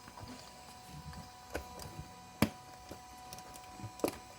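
A few sharp clicks and taps from handling RC car wheels and rubber crawler tires, the loudest about two and a half seconds in, over faint handling noise.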